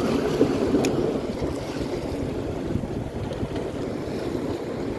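Sea waves washing and splashing against breakwater rocks, with wind rushing on the microphone; a single sharp click about a second in.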